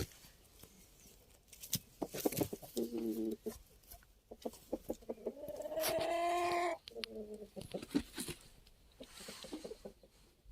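Brahma hens making low, contented clucks. There is a short call about three seconds in and a longer drawn-out one past the middle, with scattered light clicks between them.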